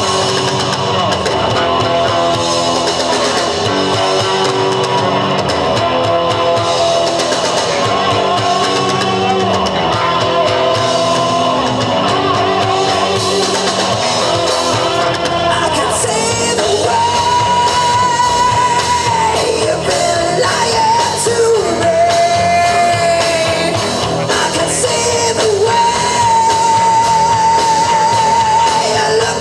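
A live rock band playing: electric guitars and drum kit. Through the second half, a singer holds long, wavering notes over the band.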